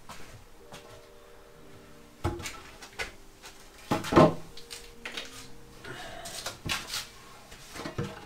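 Wooden formwork boards being handled and knocked into place: irregular clunks and knocks, the loudest about four seconds in.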